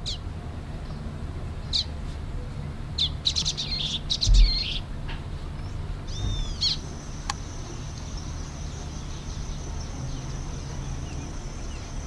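Common waxbill (Estrilda astrild) giving short high chirps, with a quick flurry of chirps a few seconds in and arched calls about halfway. A low thump comes about four seconds in. A steady high-pitched buzz sets in about halfway and holds over a low background rumble.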